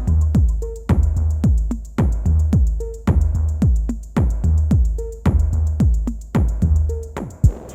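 Elektron Analog Rytm drum machine playing a pattern: deep kicks that drop in pitch, fast ticking hi-hats and short synth blips in a steady beat. The pattern changes near the end.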